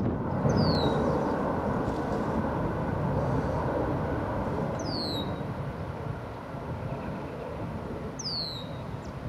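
Boeing 747-400 jet engine rumble, slowly fading away. A bird gives a short, high, falling whistle three times over it.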